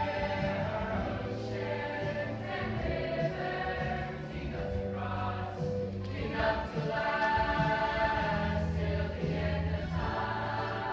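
Mixed show choir singing over a steady bass accompaniment.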